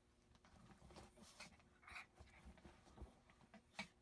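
Near quiet with a few faint, short cries from a pet, one of them about two seconds in, and a soft click near the end.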